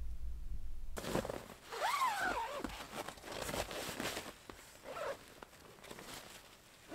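Heavy canvas tent being handled while it is taken down: irregular rustling and crinkling of the fabric, with a brief rising-and-falling squeak about two seconds in. Before that, for about a second, there is only a low rumble.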